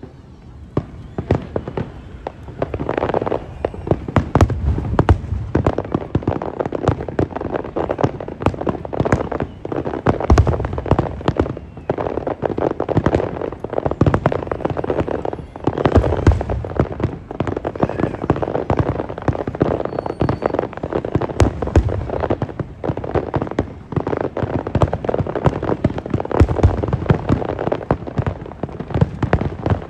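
Aerial fireworks going off in a dense barrage: rapid crackling pops throughout, building from about a second in, with deeper booms every few seconds.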